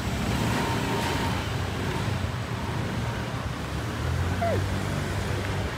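Street traffic noise: a steady rumble of cars, with a brief falling tone about four and a half seconds in.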